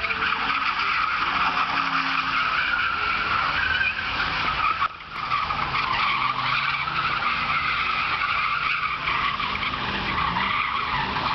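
Car tyres screeching continuously as they spin in a burnout, with the engine running underneath. The screech dips briefly about five seconds in, then carries on.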